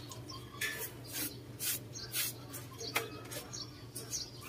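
A few short scraping strokes and a sharp tap about three seconds in, over a steady low hum.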